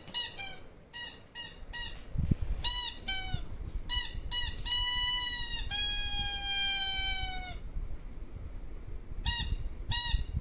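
A squeaky toy squeaked again and again in short high chirps, then held in two long squeaks about halfway through, the second sliding slightly lower in pitch. After a short pause it squeaks a few more times near the end.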